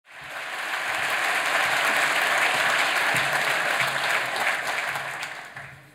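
Audience applauding: dense clapping that swells in quickly and fades away near the end.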